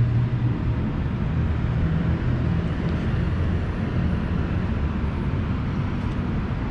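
Steady low city rumble: distant traffic and rooftop machinery blending into one continuous drone.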